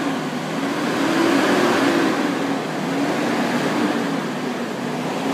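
A car engine running steadily, with a low hum that wavers in pitch over a constant noisy rush.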